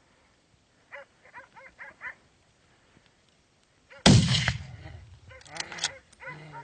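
Hunting dogs barking at a bear in quick runs of barks, with a single loud, sudden bang about four seconds in that fades out slowly, followed by more barking.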